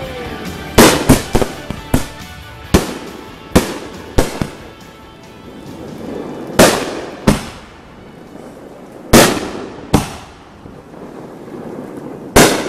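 Aerial fireworks shells bursting overhead: about a dozen sharp bangs at uneven intervals, some in quick pairs, each trailing off in echo.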